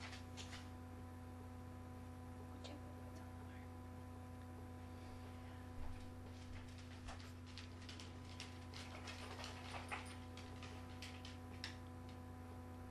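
Pet rats moving about, making scattered faint, irregular clicks and scratches, over a steady low electrical hum.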